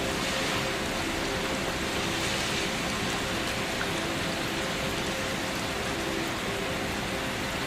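Steady gentle rain falling, an even hiss with no breaks or single loud drops.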